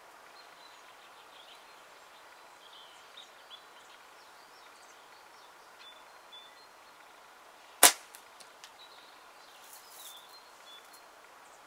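Flatband slingshot shot: about eight seconds in, a single sharp, loud snap as the tapered Gong Chi bands are released and fling a 7mm steel ball. Faint birdsong chirps come and go in the background.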